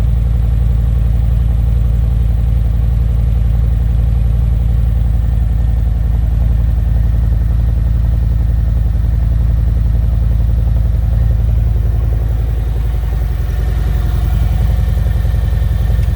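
Harley-Davidson Milwaukee-Eight V-twin idling steadily through a slip-on muffler whose baffle is packed with fiberglass only, no steel wool.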